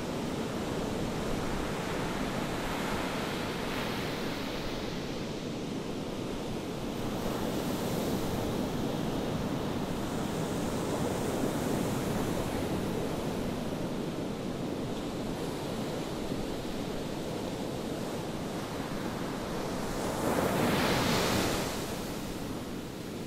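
Ocean surf on a beach: a continuous rush of waves that swells and eases in slow surges. One wave breaks louder near the end.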